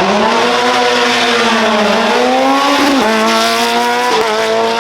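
A hill-climb race car's engine accelerating hard from the start, the pitch climbing and dropping sharply twice as it shifts up through the gears, about three seconds in and again a second later.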